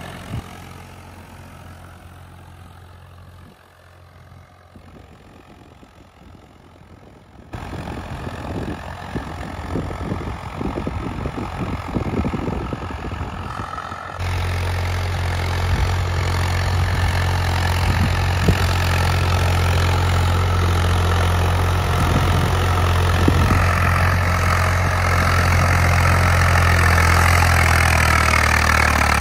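Swaraj 855 tractor's diesel engine running in first high gear. It is faint at first, jumps louder abruptly about a quarter of the way in, and then again about halfway, after which it settles into a strong, steady low drone.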